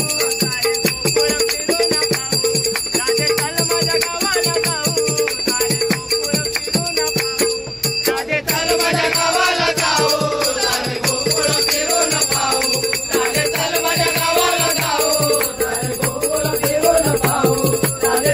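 A Marathi gavlan folk song playing, with a steady percussion beat and a jingling rattle over a held drone note. A voice sings from about halfway through.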